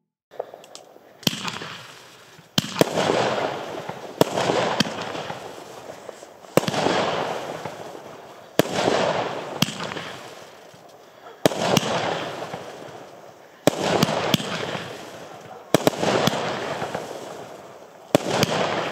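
Argento Mephisto category F2 firework battery firing shot after shot: about nine sharp bangs, roughly one every two seconds, each trailed by a rushing hiss that fades away.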